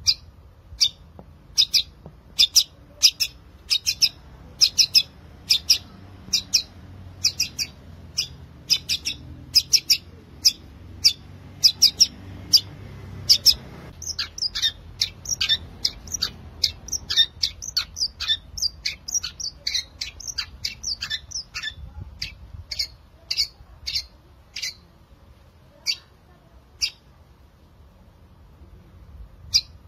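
Long-tailed shrike singing: a string of sharp, high chirps at about two a second, breaking about halfway into a faster, denser run of varied notes, then thinning to scattered chirps near the end.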